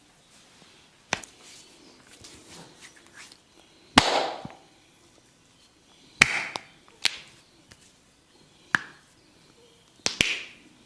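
Sharp slaps and cracks of a barber's hands working over the head in a massage: about seven hits at irregular intervals, the loudest about four seconds in and a quick double near the end, with soft rubbing of hands on hair between them.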